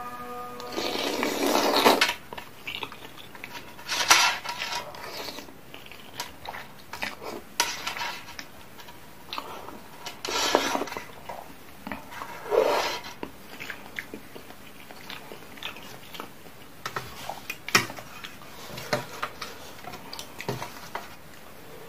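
Close-up eating of instant noodles in spicy soup: several long slurps, the loudest near the start and around ten to thirteen seconds in, with chewing between them. A fork and spoon clink and scrape against the stainless steel tray.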